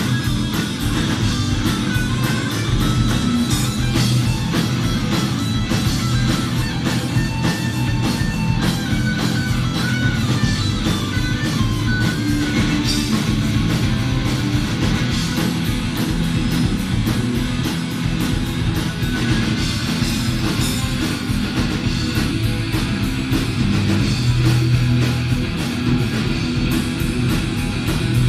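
Live rock band playing loud and without a break: distorted electric guitars and bass over a steady drum kit beat, heard from within the crowd.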